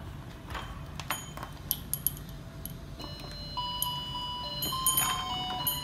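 Scattered plastic clicks and knocks from a toy ice cream cart playset being handled, then about three seconds in a simple electronic melody of held notes starts, the toy's built-in music.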